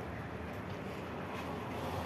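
Steady outdoor background noise of a construction site: an even low rumble and hiss, with a faint tap or knock about one and a half seconds in.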